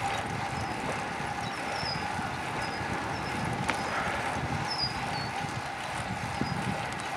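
Bicycle rolling fast downhill on an asphalt road: steady tyre and wind noise with a steady whir and occasional small bumps. Short high bird chirps come through several times.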